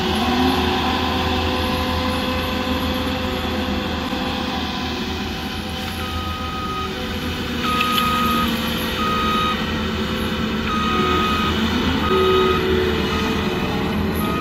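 Cat 299D3 XE compact track loader's diesel engine running steadily. From about six seconds in, its reversing alarm sounds a string of high beeps.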